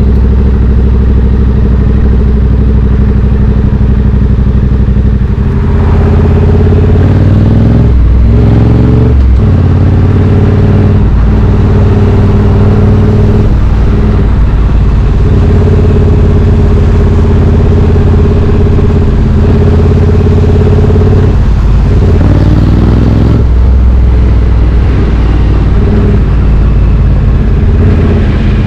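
Triumph Street Twin 900's parallel-twin engine running through British Customs slash-cut exhaust tips on the move. It runs steadily at low revs for the first five seconds, then picks up with a couple of rev changes around eight to nine seconds. It holds a steady cruise, then drops back to lower revs about two-thirds of the way through.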